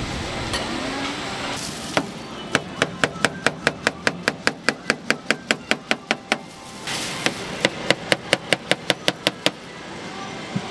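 Kitchen knife slicing a peeled banana on a plastic cutting board: quick, even chops of the blade against the board, about five a second. The chops come in two runs with a brief break between them.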